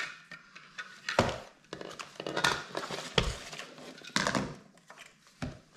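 Packaging and plastic being handled as a toy is freed from its box: irregular rustling with several sharp clicks, the sharpest a little past the middle.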